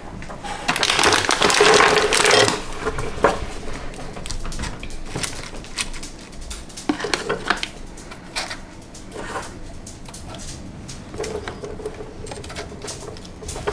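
A plastic packet and foil wrappers rustling and crinkling for the first couple of seconds, then scattered light clicks and taps as small foil-wrapped chocolate eggs are handled and set into chocolate nests in paper cake cases.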